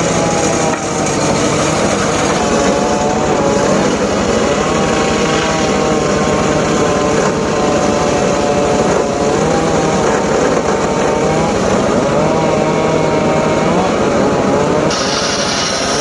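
Homemade engine-driven circular saw running and cutting wood. Its pitch dips and recovers repeatedly as the blade takes load, and a higher whine joins near the end.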